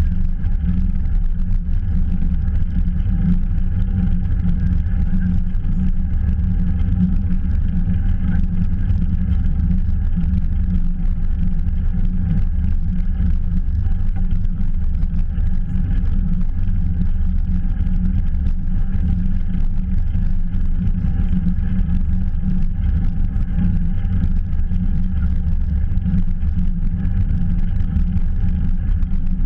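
Steady low rumble of wind and road noise on a camera moving with a bicycle, with a few constant faint hums above it.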